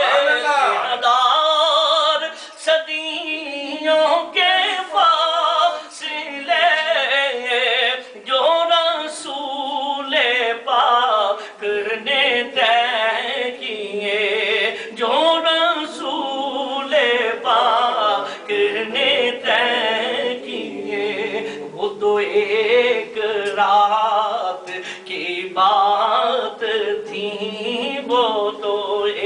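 A man singing an Urdu naat unaccompanied into a microphone, in long, ornamented melodic phrases with short pauses for breath.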